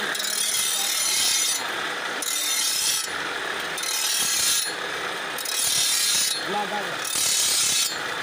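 Sickle blade being ground on a pedal-driven grinding wheel mounted on a bicycle: a rasping hiss in repeated passes, about one every second and a half, with short breaks between.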